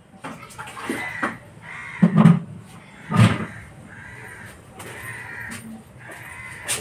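A bird calling repeatedly in short arched calls, with two loud knocks about two and three seconds in.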